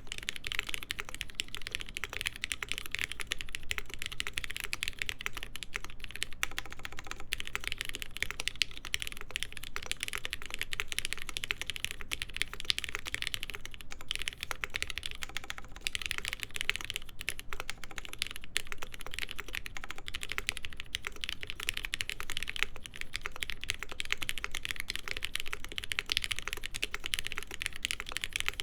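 Continuous fast typing on a Mode SixtyFive mechanical keyboard with lubed Cherry MX Black linear switches and JTK Hana keycaps on a POM half plate, stack mount: a steady stream of key strokes with no pauses.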